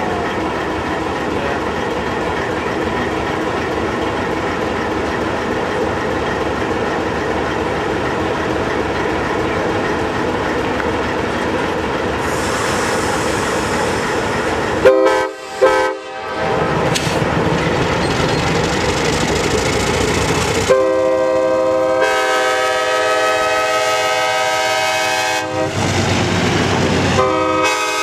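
A Leslie K-5LAR24 five-chime air horn on an Alco C420 diesel locomotive. It follows a steady rumble and hiss from the standing locomotive. About halfway in the horn gives two quick short toots, then from about three-quarters in it sounds a long, loud chord of several notes that briefly drops away and comes back near the end.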